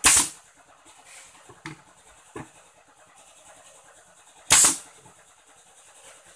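A pneumatic nail gun fires twice into an MDF cabinet panel, at the start and about four and a half seconds later. Each shot is a sharp crack with a short tail, and a few lighter knocks fall between them.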